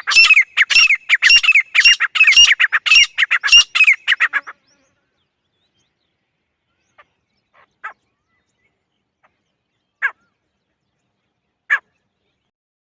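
Female grey francolin calling: a fast run of loud, repeated notes for about four and a half seconds, then three single short calls spaced a couple of seconds apart.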